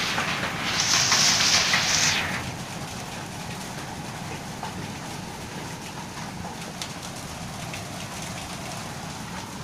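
Heavy monsoon rain hissing loudly, then about two seconds in dropping suddenly to a quieter steady rain sound with scattered faint drips.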